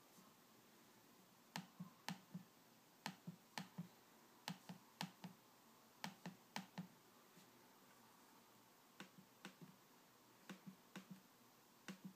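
MacBook Pro Retina trackpad being clicked over and over: short, sharp clicks in quick runs of two or three, with pauses between the runs.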